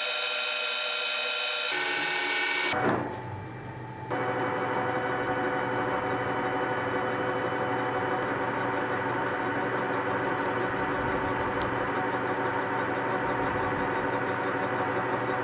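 Metal lathe cutting a spinning brass workpiece with a turning tool, a high whine with a short sharp burst about two seconds in. After a brief dip, the lathe runs with a steady hum while abrasive paper is held against the spinning brass.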